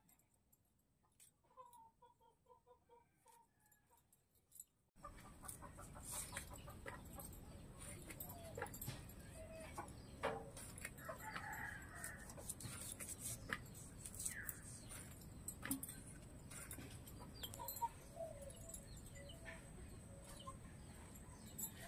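Chickens clucking over a steady outdoor background, with light clicks from vegetables being sliced on a boti blade and with a knife. The first few seconds are much quieter, holding only a brief run of quick soft chirps, before the background comes in suddenly about five seconds in.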